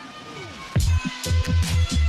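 Electronic music: a falling pitch sweep, then heavy bass hits and sharp beats come in just under a second in.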